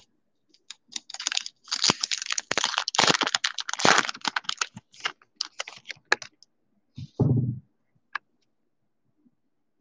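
Foil trading-card pack wrapper crinkling and tearing as it is ripped open, a dense run of crackles over several seconds. A short low thud follows about seven seconds in, and a single click a moment later.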